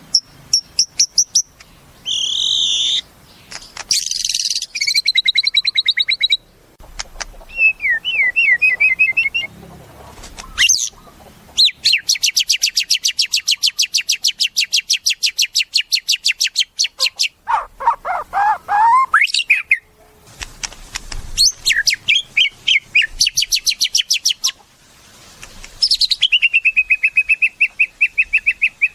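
White-rumped shama (murai batu) singing a long, varied song: fast rattling runs of repeated notes, one lasting about five seconds near the middle, broken by sweeping and falling whistles.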